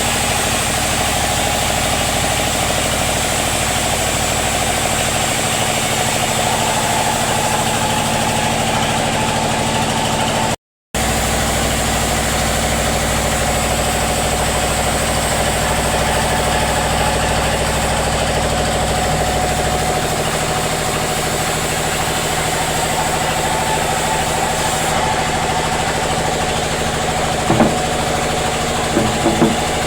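Sawmill machinery running with a steady engine-like hum. It drops out briefly about a third of the way in, and a few short knocks sound near the end.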